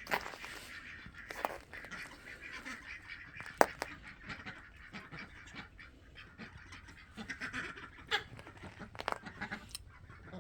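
15-week-old black Muscovy ducks making soft, breathy calls, with a handful of sharp clicks scattered through, the loudest about three and a half seconds in.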